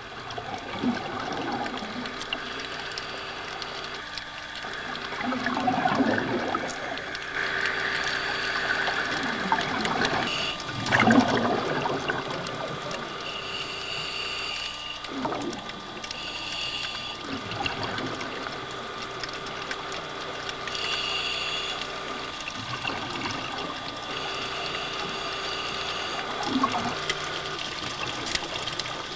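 Underwater sound of scuba divers breathing through their regulators: exhaust bubbles gurgle up in surges every few seconds over a steady hum.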